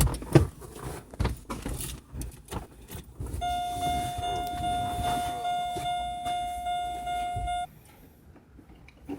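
Several knocks and clicks, then a steady electronic buzzer tone that holds one pitch for about four seconds and cuts off suddenly.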